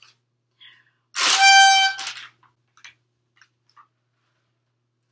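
A paper party blower (noisemaker) is blown once about a second in, giving a single steady, reedy honk about a second long. A few faint clicks follow.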